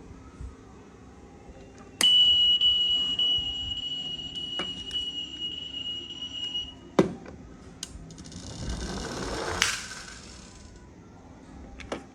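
A steady high-pitched electronic beep, switched on with a click, holds for about five seconds. A sharp click follows, then a short swelling hiss with another click in it.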